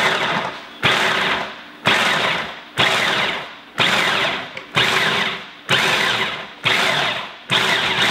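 Electric food processor pulsing on soaked chickpeas and herbs: the motor and blade start abruptly about once a second and spin down between pulses, running more steadily near the end. Pulsed in short bursts to keep the chickpeas coarse and grainy rather than puréed.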